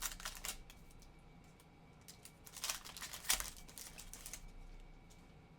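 Glossy chrome trading cards being handled and flicked through in the hand: faint short clicks and slides in a few small clusters, near the start, around the middle and about four seconds in.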